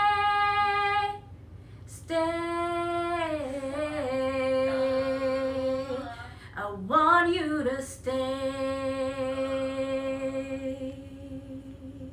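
A woman singing long, drawn-out notes without words, unaccompanied, her voice wavering slightly on each held note. It breaks off briefly about a second in and again around six seconds in, sliding into the next note, and grows fainter near the end.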